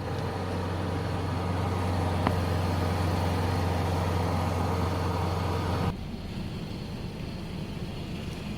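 Car driving: a steady low engine and road drone inside the cabin. About six seconds in it cuts abruptly to a quieter drive noise.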